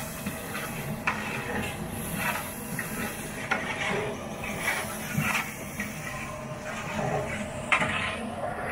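A long metal rod stirring a large aluminium cooking pot, knocking and scraping against the pot a few times, over a steady hiss of the gas cooking burner.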